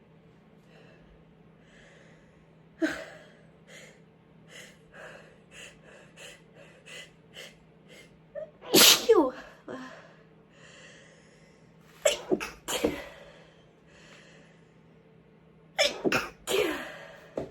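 A woman sneezing several times. There is a sharp sneeze about three seconds in, then a run of short quick breaths building up to a loud sneeze near the middle, two more sneezes about twelve seconds in, and a cluster of sneezes near the end.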